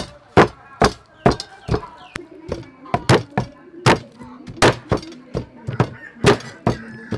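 Heavy cleaver chopping raw duck through bone on a thick round wooden chopping block: a steady series of sharp chops, about two a second.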